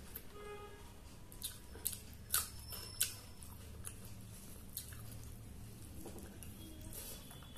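A person eating rice and curry by hand: wet chewing and mouth smacks, with a few sharp smacks between about two and three seconds in.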